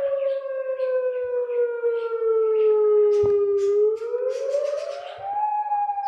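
Federal Signal Modulator electronic outdoor warning siren sounding a wail tone: a loud pitched note that slides slowly down, rises again about four seconds in, and begins another slow fall near the end.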